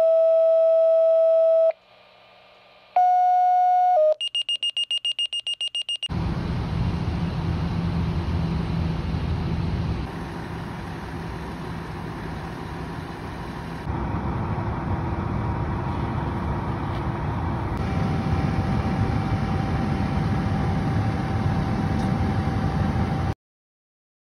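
Electronic alert tones: a long steady tone, a shorter higher tone, then about two seconds of rapid high beeping. From about six seconds in comes a steady low rumble and hiss of a fire engine running at the scene, which stops abruptly near the end.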